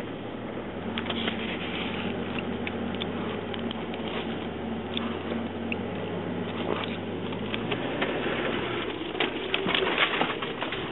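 Steady low hum of a car's idling engine heard inside the cabin, with scattered light clicks and taps. The hum fades about eight seconds in, and the taps get busier near the end.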